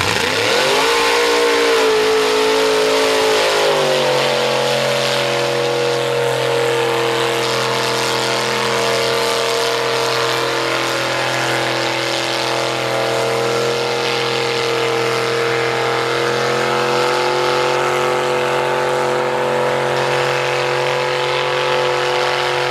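Mud truck's engine at full throttle: the revs climb sharply at the launch, then hold high and steady as it plows through the mud pit.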